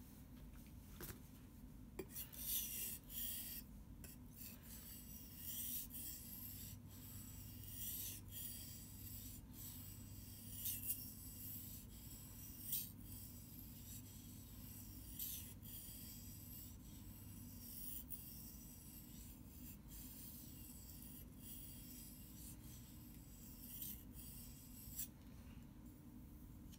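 Survival knife blade being stroked back and forth across a wet whetstone: a rhythmic scraping at about two strokes a second that starts about two seconds in and stops shortly before the end.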